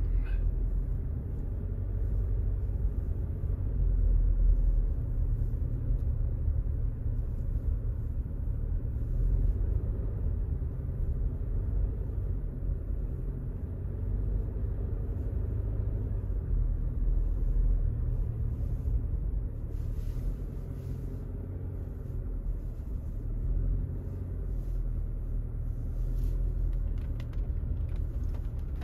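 A vehicle driving slowly over a snow-covered road, heard from inside the cabin: a steady low rumble of engine and tyres, with scattered faint crackles.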